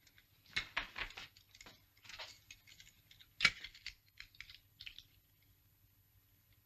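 Light, irregular clicks and rustles of the laboratory apparatus being handled and set up, with one sharper click about three and a half seconds in.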